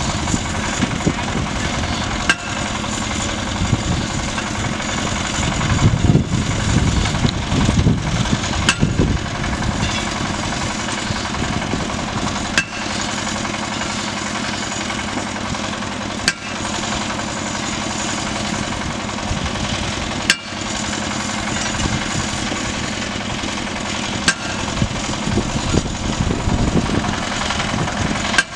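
Engine of a raft-mounted geotechnical drilling rig running steadily, with a steady hum under it. It grows louder for a couple of seconds about six seconds in, and a few sharp clicks break in along the way.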